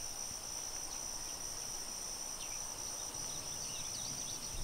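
Chorus of insects buzzing steadily at a high, even pitch.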